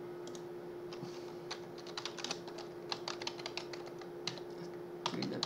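Typing on a computer keyboard, a quick irregular run of key clicks entering a command, over a steady low hum.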